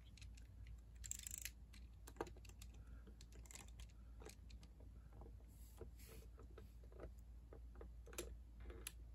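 Faint, irregular clicks and rattles of LEGO plastic parts as a LEGO torque wrench's socket is seated on a LEGO nut and the wrench is worked to tighten it.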